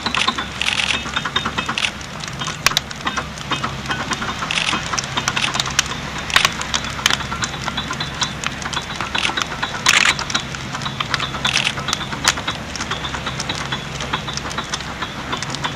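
A grand piano on fire, crackling and popping with many irregular sharp snaps, over a steady low rumble.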